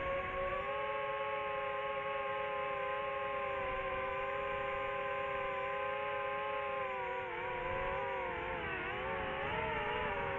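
Quadcopter drone's electric motors and propellers whining in a steady multi-tone drone. About seven seconds in, the pitch starts to waver, dipping and rising as the motors change speed.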